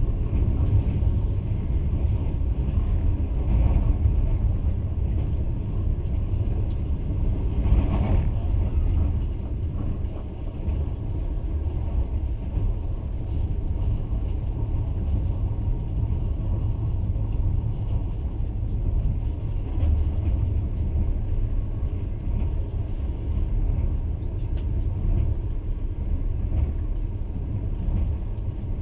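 Passenger train running at speed: a steady low rumble of the carriage and its wheels on the rails, with a brief louder swell about eight seconds in.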